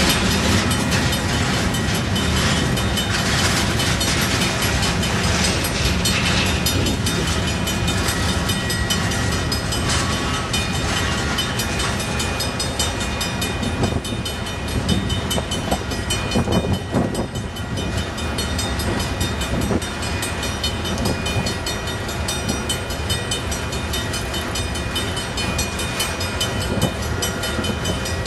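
Freight train cars, a string of hopper cars, rolling past steadily: steel wheels rumbling and clattering over the rail joints.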